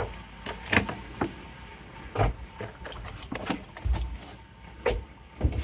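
Handling noises: a run of irregular knocks, clicks and scrapes, several with a low thump, as chicken legs are offered to a reticulated python.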